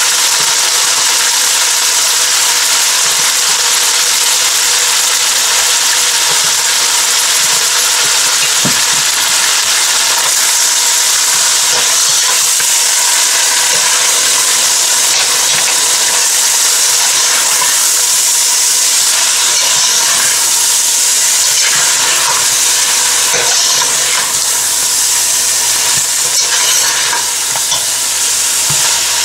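Pieces of goat meat sizzling and frying in hot oil in a stainless steel pot with a steady, even hiss, being stirred with a metal ladle that scrapes and ticks now and then. This is the bhuna stage, the meat being fried dry after its gravy was drained off.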